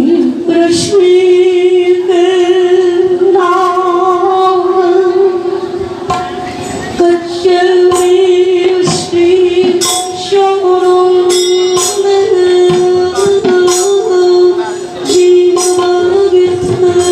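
Manipuri kirtan: women singing a devotional chant over one steady held note, with frequent sharp percussion strokes.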